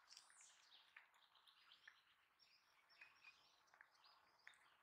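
Near silence with faint birds chirping, many short twittering calls and quick upward and downward glides that keep going.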